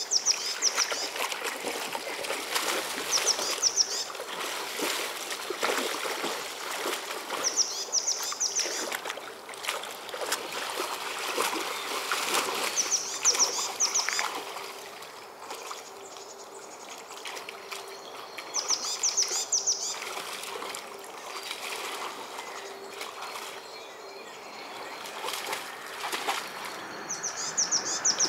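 Weimaraner splashing and wading in a shallow river as it lunges at fish, the water sloshing in uneven bursts. A bird repeats a short, high chirping call every few seconds.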